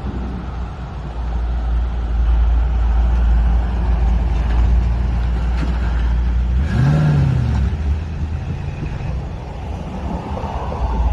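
1956 Ford F100 pickup driving past with its engine running in a low rumble; about seven seconds in, the engine note briefly rises and falls as it revs.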